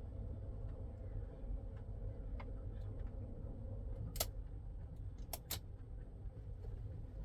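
Faint steady hum of a new electric in-tank diesel fuel lift pump priming the fuel system with the ignition on, with sharp clicks about four seconds in and twice more about a second later.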